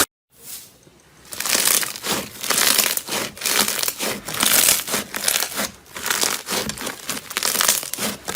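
Slime being squished and pressed by hand, crackling and crinkling in repeated bursts that start about a second in.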